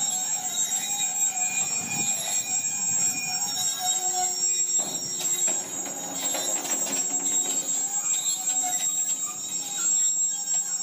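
Rhaetian Railway flat wagons rolling slowly past, their wheels squealing in several thin steady tones that come and go over a rolling rumble, with scattered clicks and knocks.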